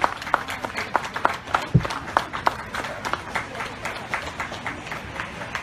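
Scattered clapping from a small group of spectators, separate claps a few per second at an uneven pace, with a single low thump about two seconds in.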